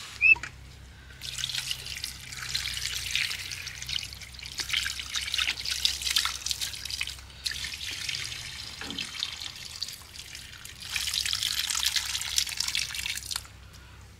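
Water splashing and trickling as cut fish pieces are rinsed by hand in a steel bowl, in three long stretches with short breaks between them. A sharp click comes right at the start.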